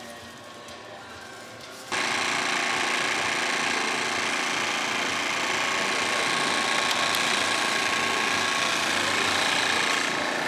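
Portable generator engine running steadily. It comes in suddenly about two seconds in, after a quieter stretch.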